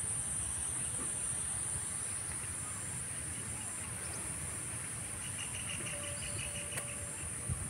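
Insects chirring steadily at a high pitch, with wind rumbling on the microphone. A faint run of quick chirps comes in about two-thirds of the way through.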